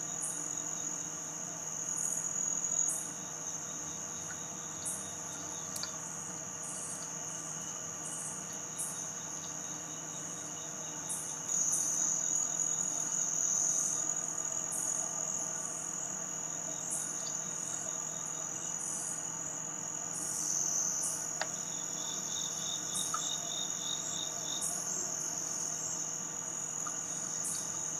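Steady high-pitched chorus of crickets and other insects. A chirp above it repeats about once a second, and a brief fast trill comes in about three-quarters of the way through.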